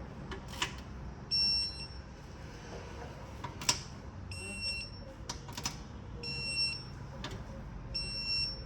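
Electronic torque wrench beeping as each camshaft bearing cap bolt reaches the set 5 ft-lb: four short high beeps, one every couple of seconds, with a few sharp metal clicks between them.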